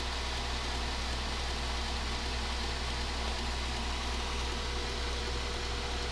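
KMG belt grinder running steadily with an abrasive belt spinning free, nothing being ground: an even whir over a low motor hum.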